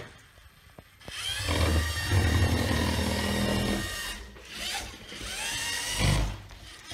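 LEGO Mindstorms robot's drive motors and gears whirring as it drives across the mat, in two runs, each rising in pitch as it speeds up.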